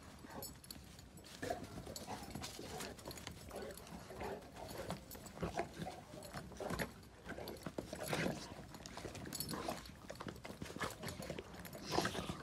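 Two Presa Canario dogs wrestling in play, a run of irregular short scuffles mixed with brief dog vocal noises. It is rough play, not a fight.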